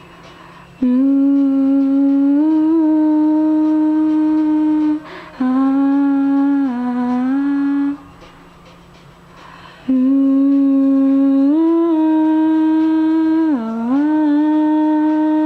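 A singer humming a melody unaccompanied in long, steady held notes. There are three phrases with short pauses between them, starting about a second in, around five and a half seconds in, and at about ten seconds.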